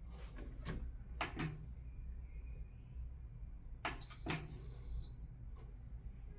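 A few clicks and knocks of handling, then a single steady high electronic beep lasting about a second, typical of a washing machine's control-panel buzzer.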